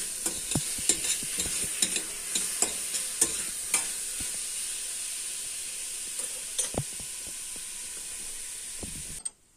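Diced chicken breast sizzling in a stainless steel pot over a gas burner while it is stirred, the utensil clicking and scraping against the pot several times a second. The stirring stops about four seconds in, with a couple more clinks near seven seconds, while the steady sizzle goes on until it cuts off just before the end.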